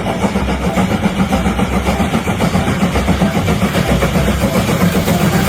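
A loud, steady engine-like rumble with a fast, even flutter and no change in pitch.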